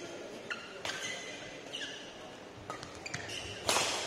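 Badminton rally in an echoing hall: the shuttlecock struck by rackets with sharp clicks, and shoes squeaking on the court mat, with a louder burst of noise near the end.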